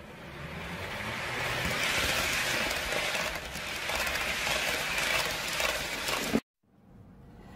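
Model train (diesel locomotive pulling container well cars) running past close by: a steady rolling whir of motor and wheels on the track, growing louder over the first two seconds as it nears, then cutting off suddenly about six seconds in.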